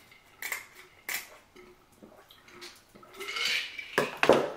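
Eating a seafood boil: scattered clicks and clatter of lobster shell and dishes being handled, a longer wet sucking sound a little after three seconds, and the loudest crunch or clatter about four seconds in.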